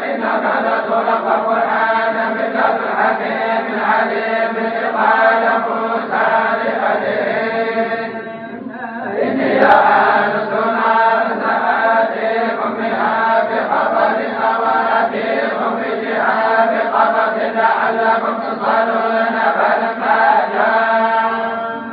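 Tolba, a group of Quran reciters, chanting the Quran together in the Moroccan collective style with long sustained notes. The chant dips briefly about eight seconds in, then resumes.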